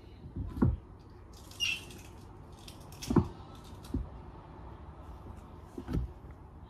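Lettuce and cabbage leaves being handled and set down inside a snail's container: a few dull knocks and bumps against the container, with a short crinkly rustle of leaves about two seconds in.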